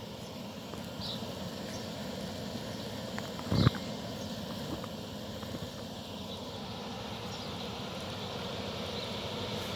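Parked car's engine idling steadily, with a single short thump about three and a half seconds in.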